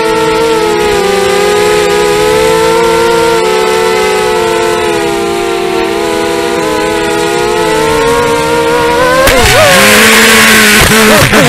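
A 250-size racing quadcopter's motors and propellers whining, the pitch wavering with throttle, heard from the onboard camera. About nine seconds in it hits the grass: a rough scraping noise breaks in and the motor pitch swoops up and down.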